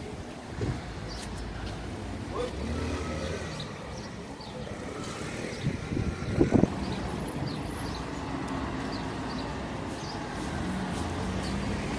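Steady running noise of a moving vehicle with traffic around it, and one short, sharp knock about six and a half seconds in.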